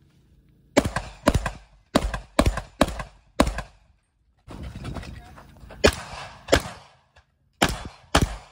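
Rock Island VR80 semi-automatic 12-gauge shotgun firing in quick strings. Six shots come about half a second apart, then after a pause two more, and two more near the end.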